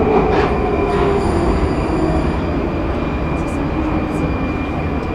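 Prague metro line B train running through the tunnel, heard from inside the car. A dense steady rumble of wheels on rail carries a thin, steady wheel squeal, with a brief higher whine about a second in, and the level eases off slightly.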